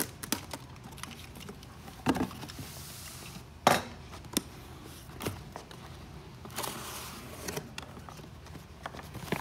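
Cardboard box being unpacked by hand: its plastic packing straps cut, then the box knocked and shifted on the table, giving a string of sharp clicks and knocks, the loudest about three and a half seconds in. Near the end comes a rustling scrape as the cardboard lid is opened.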